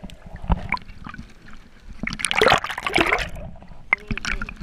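Water splashing and gurgling against a camera housing as it comes up through the sea surface, with scattered sharp knocks and a loud burst of splashing about two seconds in.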